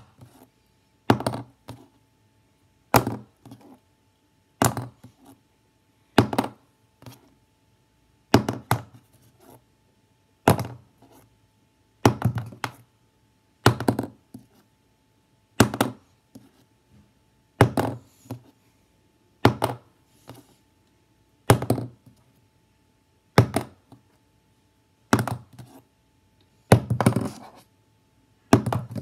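A plastic highlighter tossed in flips and landing on a hard surface, over and over: a sharp thunk about every one and a half to two seconds, several followed by a smaller clatter as it bounces or tips over.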